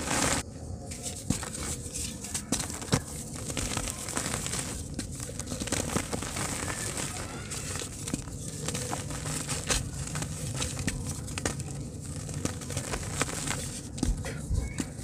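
Hands crushing and crumbling dry, powdery dirt and lumps of dried dirt, with fine soil pouring back onto the heap: a dense, irregular crackling and crunching with many small sharp crackles.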